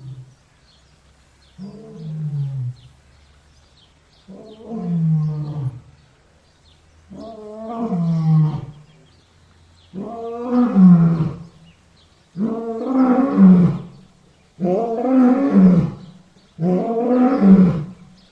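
Lion roaring bout: about seven calls, each a second or two long and falling in pitch, coming every two to three seconds and closer together as they go. They build from soft moans to full, loud roars.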